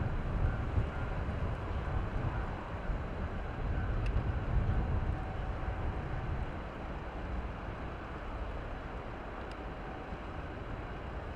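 Wind buffeting the microphone with a gusty low rumble, easing after the first half, over the faint steady hum of a KiHa 40 series 1700 diesel railcar as it approaches.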